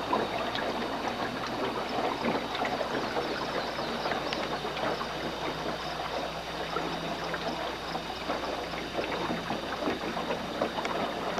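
Water lapping and splashing against the hull of a small aluminum jon boat as it moves along, a steady crackling patter of small splashes.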